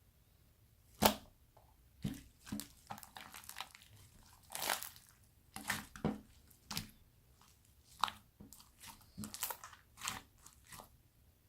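Glitter slime being squeezed and worked by hand, giving irregular sticky pops and crackles, the sharpest about a second in.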